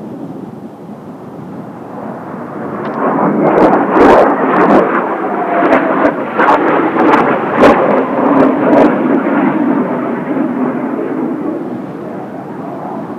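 Kawasaki T-4 jet trainer flying past, its jet noise swelling over a few seconds, loudest for several seconds in the middle, then fading away. Strong wind gusts buffet the microphone in short thumps during the loudest part.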